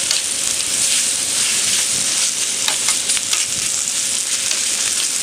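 Cabbage and salted pork sizzling steadily on an electric barbecue's hot iron plate as they are stir-fried, with a few short clicks and scrapes from the stirring.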